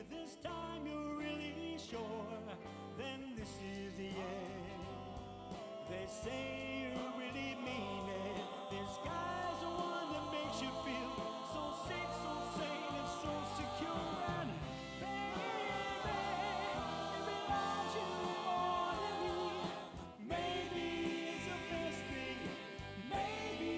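Live oldies show band playing, with voices singing in harmony over the band and a steady drum beat.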